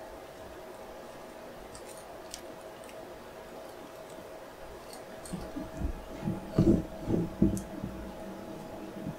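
Gloved hands handling a plastic IV catheter hub and extension tubing on a forearm. There are a few faint clicks, then a cluster of dull thumps and rubbing about six to eight seconds in, over a faint steady hum.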